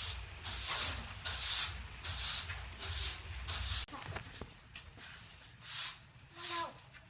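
Repeated short hissing swishes, about one every 0.7 seconds, over a low rumble. About four seconds in, the rumble stops and a steady high whine takes over. Two more swishes follow, then a short animal call near the end.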